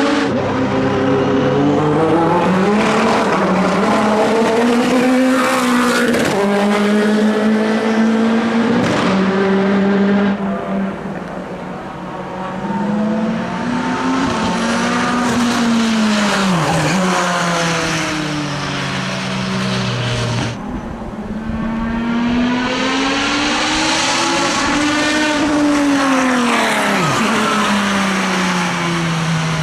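Endurance race cars running at speed on a circuit, engines revving hard through gear changes and dropping in pitch as each car goes by. The passes come in three separate stretches with abrupt breaks between them.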